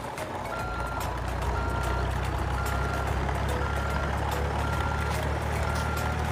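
Toy truck's electronic sound effects: a recorded diesel-truck engine hum under a short high reversing beep that repeats about once a second.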